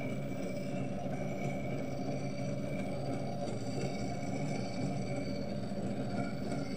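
Small battery-powered DC motor of a toy drawing machine running steadily, driving plastic gears that turn the paper disc and swing the pen arm, with a faint high whine that comes and goes over an even whir.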